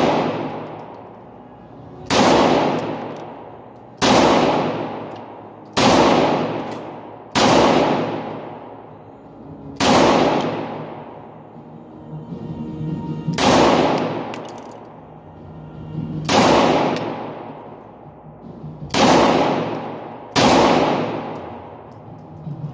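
Nine handgun shots fired one at a time, a second and a half to three and a half seconds apart. Each one rings out and fades over a second or more in the echo of an indoor shooting range.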